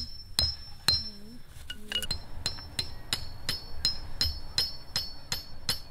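Claw hammer striking a metal tent stake into grassy ground. Each blow is a sharp knock with a bright metallic ring. The blows come evenly, about two a second at first, then quicken to about four a second from about two seconds in.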